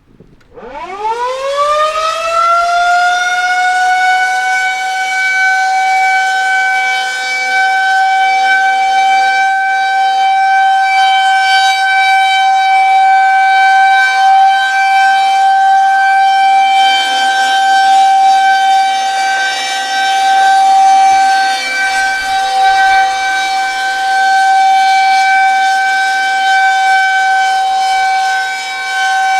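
Brand-new Federal Signal 2001-130 electromechanical outdoor warning siren winding up over the first two seconds, then holding a steady tone: the alert signal. Its level rises and dips slightly as the siren rotates.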